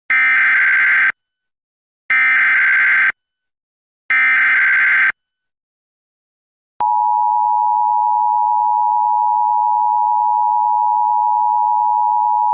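NOAA Weather Radio Specific Area Message Encoding (SAME) alert header: three short, identical buzzing digital data bursts about a second apart. Then, after a brief gap, a loud steady single-pitch warning alarm tone begins, marking the start of a weather warning broadcast.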